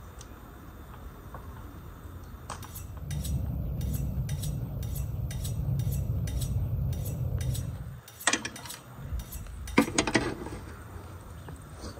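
Metal skewers clinking against a charcoal grill, in two clusters of sharp clinks, one about two-thirds of the way through and one shortly after. Before them comes a low rumble with regular ticking, about two or three ticks a second.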